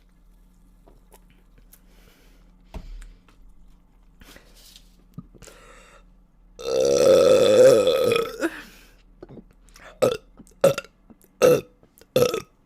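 A woman burping: one long, loud burp about halfway through, then a quick run of four short burps near the end.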